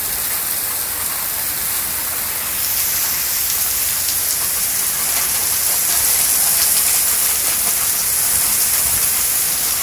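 Heavy rain pouring down in a severe thunderstorm with gusting wind, a steady hiss that grows heavier about two and a half seconds in.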